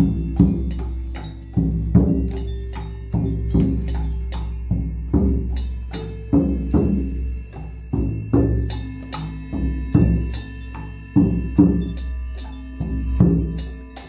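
Live percussion improvisation: a large frame drum struck with a beater, irregular beats at a little under two a second, over held ringing tones and a low rumble, with a few brief rattles.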